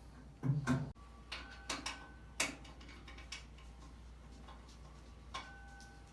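Irregular clinks and knocks of metal table-saw parts being handled, about ten in all, some leaving a brief ringing tone. The loudest is a double knock with a low thud about half a second in.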